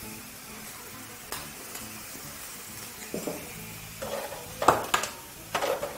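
Bacon sizzling steadily in a hot frying pan beside a pot of boiling water with freshly added penne. A few sharp clinks of metal kitchen utensils come in the last couple of seconds.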